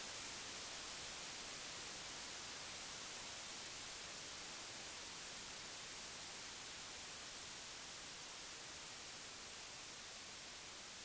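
Television static from a broken or untuned channel: a steady, even hiss with no tone or rhythm, easing slowly downward in level.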